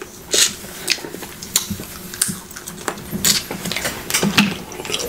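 Close-miked eating of snow crab: a string of irregular sharp clicks and cracks from handling the shells and from the mouth, a few in each second.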